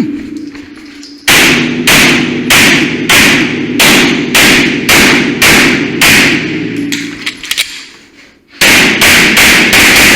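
Pistol fire during a timed stage: a string of about nine shots roughly half a second apart, a pause of about two seconds, then four or five quicker shots near the end.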